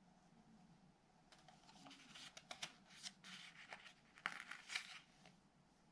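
Faint paper rustling and crinkling from the pages of a hardback picture book being handled, in irregular crackles that start about a second in and die away near the end.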